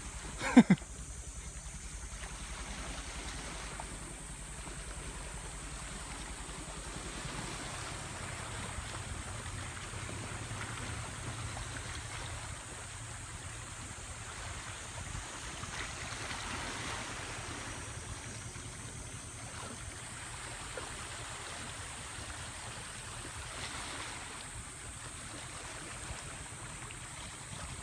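Steady wash of sea water and wind with the low rumble of a boat's engine underneath.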